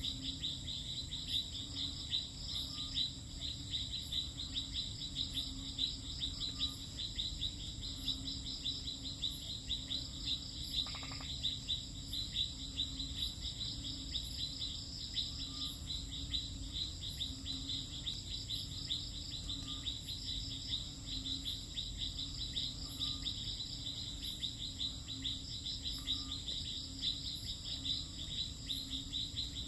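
Night insect chorus of crickets trilling in a steady, fast pulsing drone, with a fainter short call repeating every few seconds beneath it.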